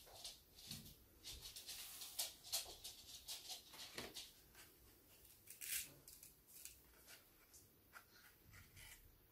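Faint, scattered soft ticks and rustles from hands sprinkling seeds onto potting soil and handling a paper seed packet.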